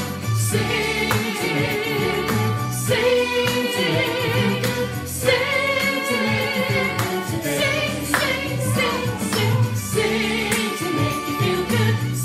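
Music: a song with singing over a backing track with a steady beat.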